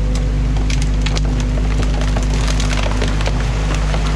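An excavator's engine runs steadily while sticks crack and snap again and again as the bucket tears apart a beaver dam of packed branches.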